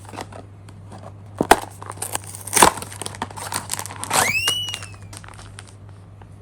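Packaging of blind-box plush mascots crinkling and rustling as it is handled and opened, with two louder crunches in the first three seconds and a brief high squeak that rises and then falls slightly a little past four seconds in.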